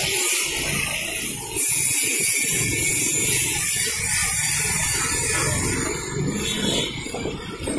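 Wind rushing over the microphone of a moving motorcycle, with a steady hiss over the engine and road rumble.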